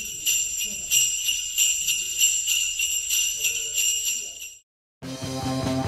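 Sleigh bells shaken in a steady rhythm, stopping about four and a half seconds in. After a brief silence, music with a steady drum beat starts near the end.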